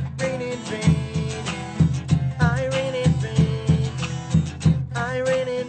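Acoustic guitars strummed in a steady rhythm, with a male voice singing held notes over them.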